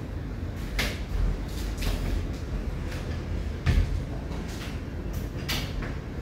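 A handful of sharp household knocks and clicks from objects being handled, with one heavier knock a little past halfway, over a steady low rumble.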